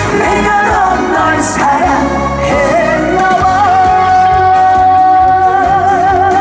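Live trot song with a backing band. About two and a half seconds in, the singer holds one long note with vibrato that lasts to the end.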